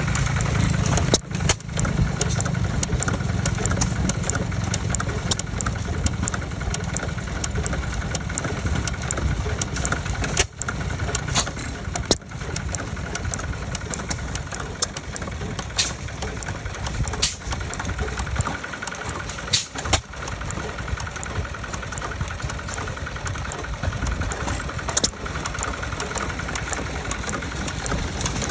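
Small vertical single-cylinder hit-and-miss engine, a 1½ HP Rawleigh-Schryer, running with a fast, steady mechanical clatter. A sharper crack comes every few seconds.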